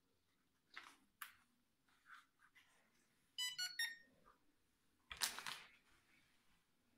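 Quiet handling of a plastic quadcopter drone and its controller: a few light clicks and knocks, a short run of electronic beeps about three and a half seconds in, and a louder rustling clatter about five seconds in.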